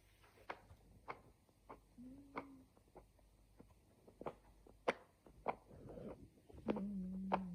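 Sleeping kangaroo grinding its teeth: a string of sharp dry clicks, roughly one every half to three-quarters of a second. Twice a low steady hum-like sound joins in, briefly near the middle and for longer near the end.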